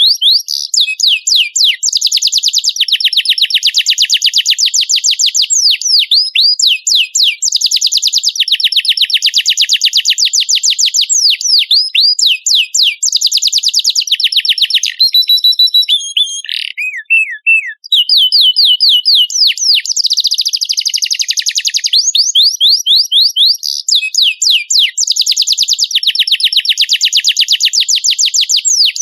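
Domestic canary singing vigorously: long runs of very rapid, high trills and rolled notes, one phrase after another. The song thins to a few scattered notes and briefly stops a little past the middle, then resumes at full pace.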